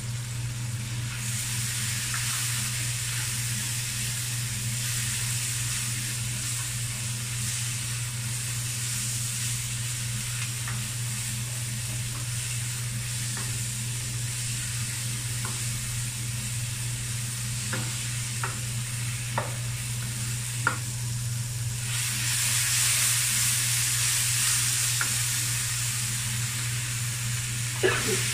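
Onions, tomatoes and dried shrimp sizzling in a nonstick wok while a spatula stirs and scrapes them, with a few sharp taps of the spatula on the pan. The sizzle grows louder near the end, and a knock comes as moringa pods are dropped into the pan. A steady low hum runs underneath.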